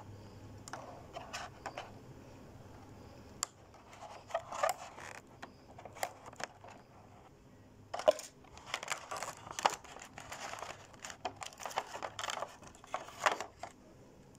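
Clear plastic blister packaging crinkling and crackling in irregular bursts as an action figure is worked free and pulled out of its tray.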